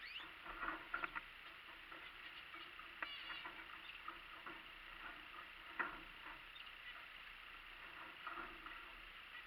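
Small aviary finches, canaries and zebra finches, giving scattered short high-pitched chirps and calls, with the sharpest one near the middle.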